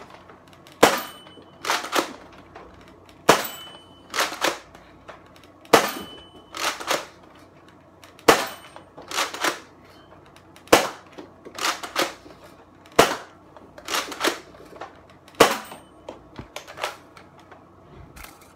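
Nerf Rival Apollo spring blaster firing seven foam rounds one at a time, about every two and a half seconds. Each shot is a sharp pop, followed about a second later by the clack-clack of the charging handle being pulled back and pushed forward to prime the next shot.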